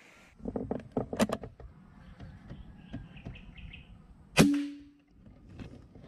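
A pellet air rifle fires once about four and a half seconds in: a single sharp crack with a short ringing tail. Before it come a cluster of knocks and clicks and a short run of high bird chirps.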